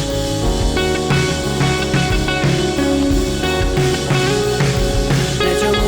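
Background pop-rock music with guitar and drums and a steady beat, in an instrumental break between sung lines.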